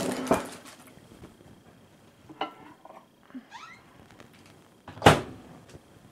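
Over-the-range microwave oven door handled: a click as it opens, a few faint knocks and squeaks while the bowl inside is handled, then a sharp thump about five seconds in as the door is shut.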